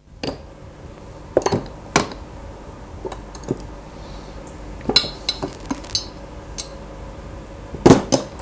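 Scattered metallic clinks and knocks of a Rotax two-stroke engine's crankshaft, its bearings knocked loose in the tunnel bore, being worked free of the split aluminium crankcase. The loudest knocks come near the end.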